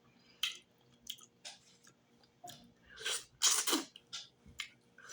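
Close-miked eating sounds: chewing with scattered wet clicks and lip smacks, busiest and loudest about three seconds in.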